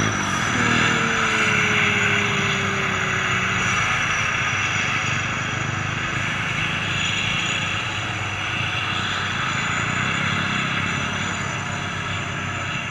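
Turbocharged diesel engine of a heavy truck running hard under load, with a whistling tone that slides down in pitch during the first few seconds. The engine sound eases slightly toward the end as the truck moves away.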